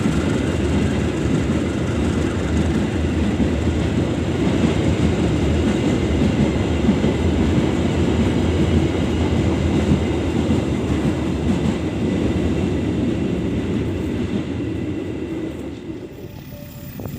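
A train of railway ballast wagons rolling on the rails with a steady low rumble, dying away near the end.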